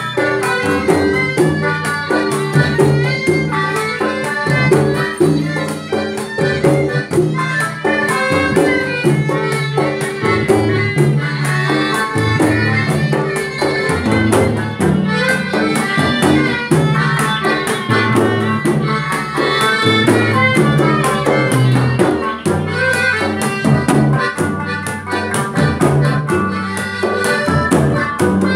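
Live Malay orchestra (orkes Melayu) playing a steady, rhythmic tune: violin, gambus lute, accordion and amplified electric guitar over a frame drum and a large barrel drum.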